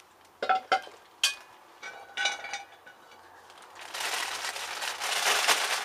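A cast-iron Dutch oven and its wire bail handle clanking and clinking a few times as the pot is set down, with a short metallic ring. From about four seconds in, a plastic bag of chopped vegetables crinkles steadily as it is handled.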